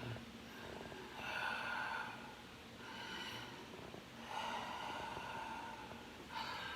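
A sleeping person breathing noisily, with sniffly, snorting breaths in and out through the nose. Several slow breaths, a longer one about four seconds in.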